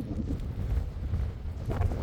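Wind buffeting the microphone outdoors, an uneven low rumble.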